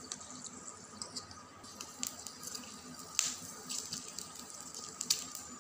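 Shrimp crackers frying in a little oil in a miniature toy pan heated by a candle: a faint sizzle with scattered small pops and clicks, the sharpest about two, three and five seconds in, and the light tap of a fork in the pan.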